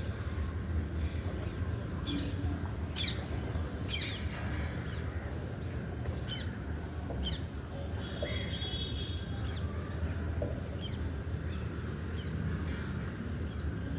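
Birds chirping: scattered short, high calls that sweep quickly down in pitch, one a little louder about three seconds in, over a steady low background rumble.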